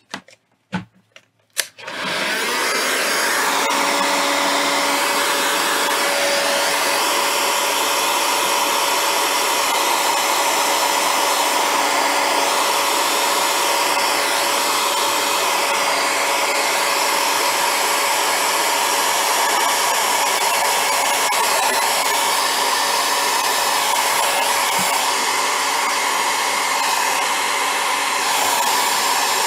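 Electric heat gun switched on about two seconds in and running steadily, a loud blowing of air with a steady fan hum, as it heats shrink tubing over the wire joints. A few short handling clicks come just before it starts.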